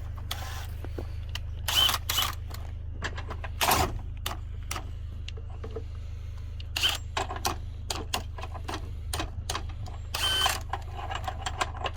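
Clicks and clanks of hand-tool work, with several short bursts from a DeWalt 54-volt cordless drill straining against a stiff fastening it struggles to turn. A steady low hum runs underneath.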